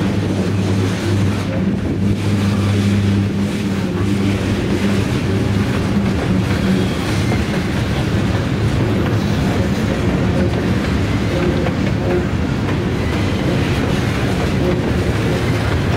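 Diesel locomotive running close by, a steady low engine drone over the rolling noise of the train's wheels on the rails.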